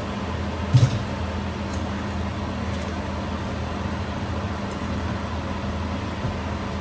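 A steady machine hum, like a kitchen fan or appliance running, with one brief knock about a second in, as of a utensil striking the cooking pot.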